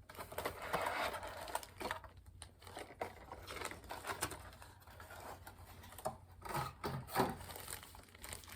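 Packaging being handled as a toy box is unpacked: rustling with scattered small clicks and knocks.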